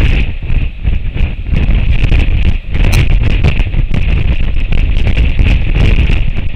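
Strong wind buffeting the outdoor nest camera's microphone: a loud, deep rumble that swells and dips in gusts, over a steady high hiss.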